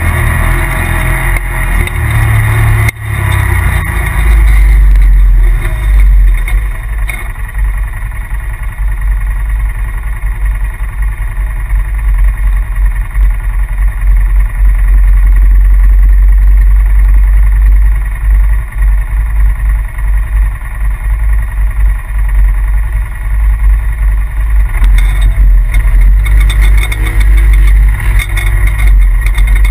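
2017 Polaris RZR Turbo side-by-side's turbocharged twin-cylinder engine running under way, loud and continuous with a deep rumble, easing off briefly about three seconds in.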